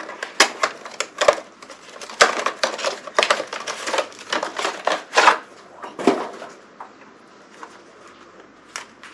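Packaging of a new road bike tyre being opened and handled: irregular crackling, rustling and clicking, thinning out over the last couple of seconds.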